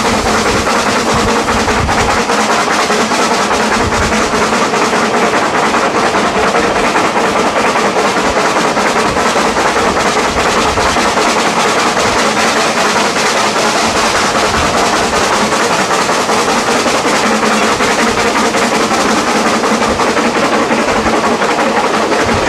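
Narrow-gauge steam locomotive 'Premier', a Kerr, Stuart Brazil class tank engine, working its train at speed, heard from an open carriage balcony. Its exhaust, the carriage wheels on the rails and the rushing air blend into one steady, loud noise.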